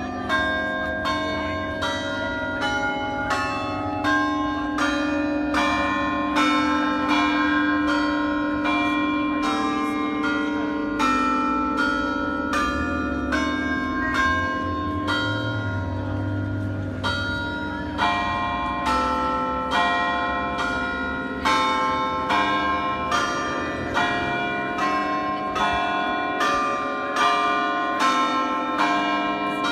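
Church tower bells ringing in an even sequence, several bells of different pitch struck one after another about twice a second, each ringing on into the next.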